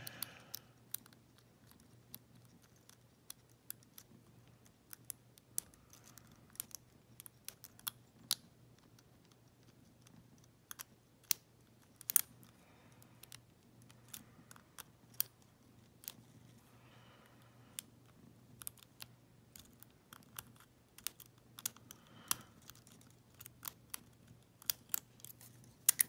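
Lock pick and tension wrench working the pins inside an EVVA euro cylinder lock: many small, irregular metallic clicks and ticks, a few of them sharper, over a faint steady hum.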